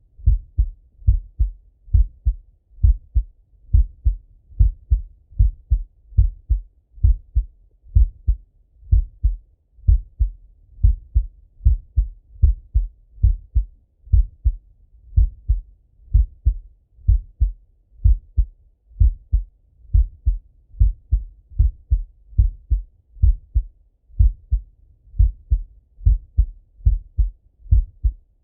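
A man's heartbeat heard through a Littmann stethoscope on his chest, with him lying on his left side: steady, slow paired lub-dub thumps, about one beat a second, deep and muffled.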